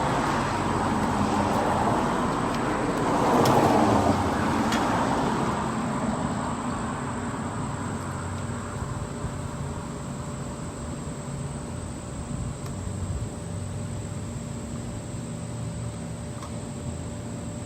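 Steady rushing background noise with a faint constant hum, louder for the first five seconds or so and then easing off, with a few faint clicks.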